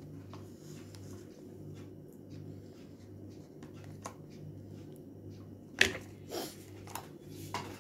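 A low steady hum with a few light clicks and knocks, sharper and more frequent in the last couple of seconds: a spoon knocking against a ribbed glass bowl of orange peel paste and hung curd.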